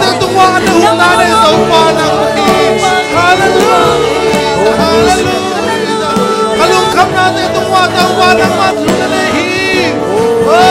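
Live church worship band (drums, keyboard, bass and electric guitar) playing a praise song, with a male worship leader and backup singers singing and the congregation singing along.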